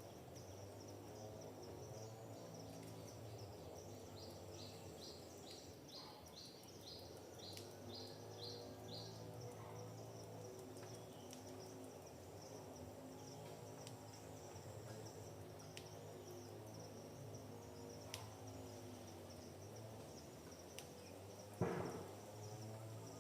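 Faint forest ambience: insects trill steadily and high throughout, and a bird gives a run of about ten short repeated notes for several seconds in the first half. Under it runs a low steady hum, and a single sharp knock near the end is the loudest sound.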